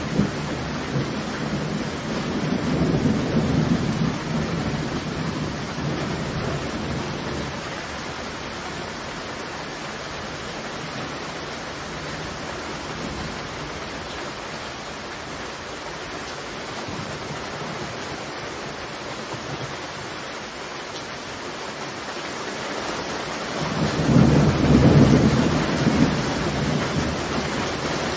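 Heavy rain falling steadily, with two rolls of thunder: one lasting several seconds at the start, and a louder one swelling up about 24 seconds in.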